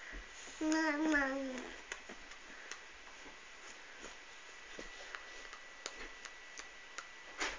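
A baby's wavering, drawn-out vocalisation, a coo lasting about a second, shortly after the start, then only small scattered clicks and taps.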